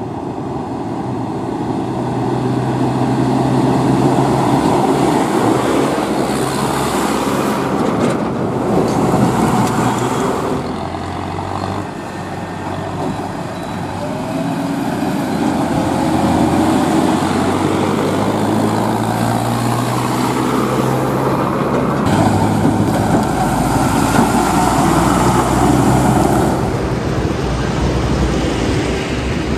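Diesel engines of a JCB 3DX backhoe loader, a Mahindra tractor and a TATA tipper truck running as they drive along the road, the engine note shifting a few times.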